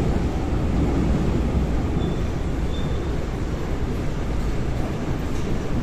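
Seoul Subway Line 4 4000-series electric train (Daewoo–Alstom GTO set) running between stations, heard from inside the car as a steady rumble of wheels on rail, with a couple of faint brief high squeaks.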